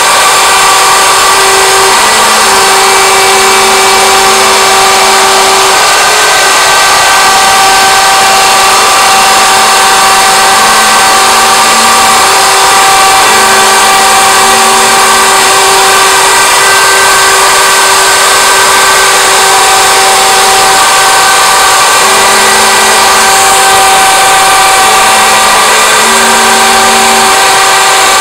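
Router on a homemade CNC machine running at speed as its bit cuts grooves into a wooden board: a loud, steady, high-pitched whine over hiss. A lower tone starts and stops every second or two.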